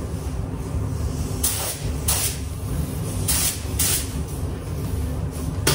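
Gravity-feed paint spray gun hissing in about five short bursts as the trigger is pulled to lay on primer, over a steady low rumble.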